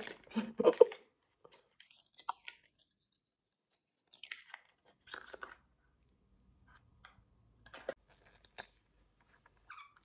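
Small makeup packaging being torn open and handled: scattered short crinkles, tears and clicks, loudest in the first second.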